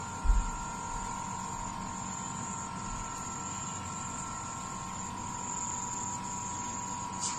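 Steady electrical hum with a constant high-pitched whine, and a short low thump about a third of a second in.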